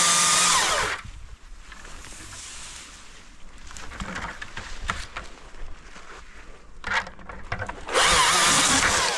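Husqvarna 542i XP cordless chainsaw's electric motor running in two short bursts, at the start and again about eight seconds in. Each burst spins up, holds for about a second and winds down. Between them are quieter rustling and small cracks of branches.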